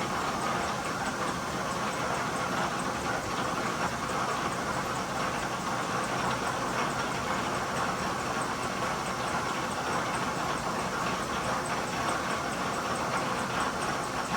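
1943 South Bend metal lathe running steadily under power, giving a constant, even mechanical whir from its drive and gearing with no change in speed.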